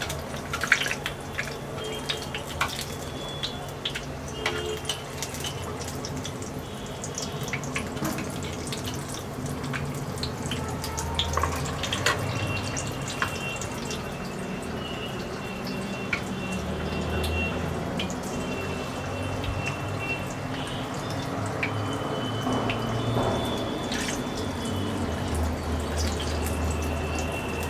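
Batter-coated stuffed green chillies (mirchi vada) deep-frying in hot oil in a steel kadai: a steady sizzle full of crackling and small pops.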